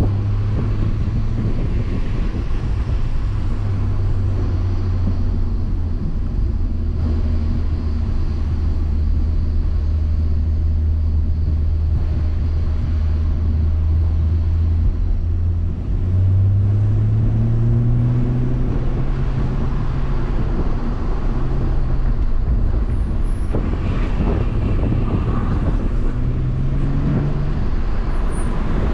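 BMW M140i's turbocharged 3.0-litre inline-six heard from inside the cabin, with tyre and road noise. It cruises at steady low revs for the first half, then about halfway through the revs climb and stay higher, rising and falling a little near the end.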